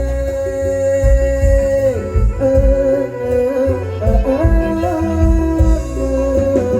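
Loud amplified Thai-Khmer folk party music: a long held melody line sliding between pitches, with strings over a heavy, steady drum beat.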